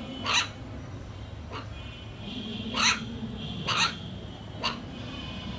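Puppy giving five short, sharp barks spread over a few seconds, the loudest about three seconds in.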